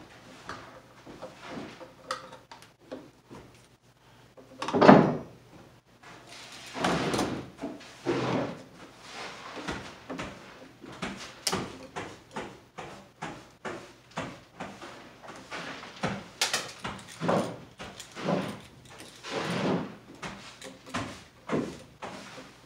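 Wiring work at a plastic electrical box overhead: pliers and electrical cable handled against the box, making irregular clicks and scrapes, with several louder rubbing rustles, the loudest about five seconds in.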